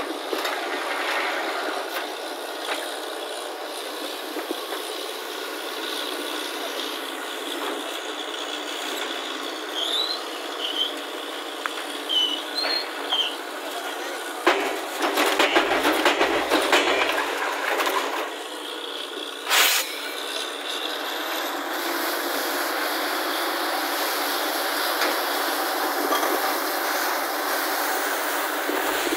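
Truck-mounted borewell drilling rig at work: it runs steadily while compressed air blows muddy water and cuttings out of the borehole around the drill pipe. About halfway through there is a louder stretch of knocking, and a single sharp knock follows a few seconds later.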